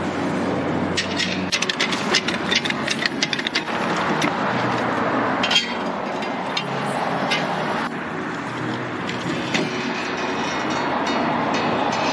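Metal clanks and rattles of a steel floor jack being moved and set under a car, a quick run of clicks in the first few seconds and a single knock a little later, over a steady background of road traffic.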